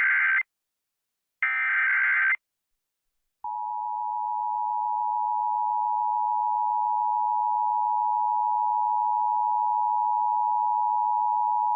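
Emergency Alert System test signal: the end of one SAME header data burst and a second full one-second burst of shrill digital tones about a second later. After a second of silence comes the EAS attention signal, a steady two-tone alert tone of 853 and 960 Hz held for about eight seconds.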